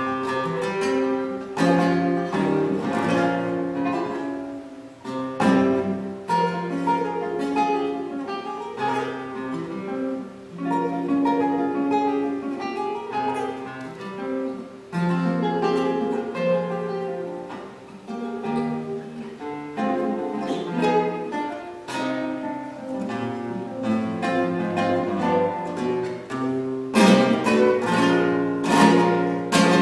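Solo flamenco guitar playing seguiriyas: single-note picked phrases and ringing bass notes, broken by sharp strummed chords, with a dense run of strums near the end.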